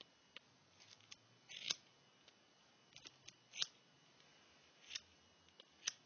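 Scissors snipping through doll wig hair: four short, sharp cuts about a second apart, with small clicks of the blades between them.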